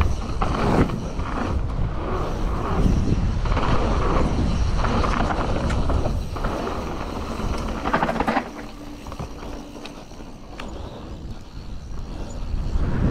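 Wind buffeting the GoPro's microphone, with the rattle and knocks of a Canyon Torque mountain bike's tyres, chain and frame on a dirt trail at speed. It turns quieter about eight and a half seconds in, then builds again near the end.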